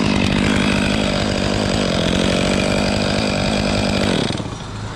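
Chainsaw running at full throttle, cutting into dead hemlock wood at a steady high pitch for about four seconds, then dropping off near the end.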